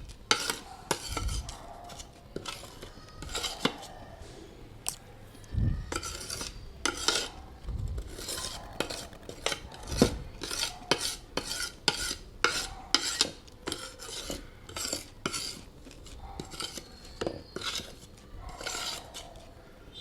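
Slate pencils and wet clay paste being chewed: sharp, irregular wet crunches, several a second.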